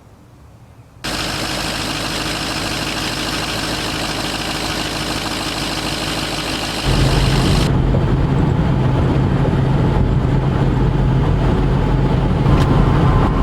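Pickup truck running steadily, the engine and road noise of driving. It starts suddenly about a second in, and about 7 seconds in changes abruptly to a louder, deeper steady hum.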